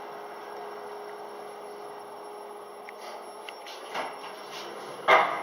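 Kone EcoDisc passenger lift running with a steady hum. There is a short knock about four seconds in and a louder clunk near the end.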